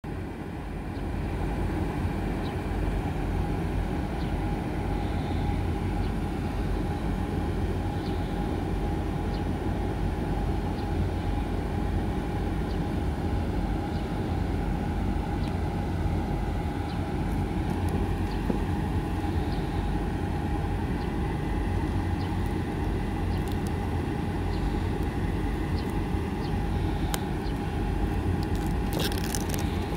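A steady low rumble with a constant mid-pitched hum running under it. About two seconds before the end comes a short burst of crackling as the clear plastic shrink-wrap on the phone box is torn.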